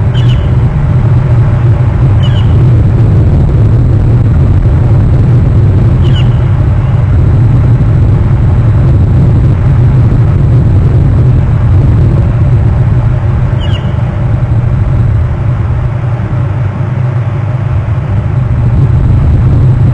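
A loud, steady low rumble on an outdoor microphone, with a few short, high chirps coming through it: once right at the start, then about two, six and fourteen seconds in.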